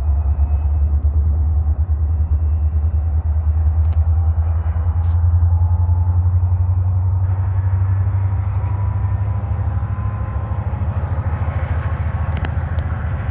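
Diesel-electric freight locomotives running at low speed as they move a cut of tank and hopper cars, a deep steady engine rumble.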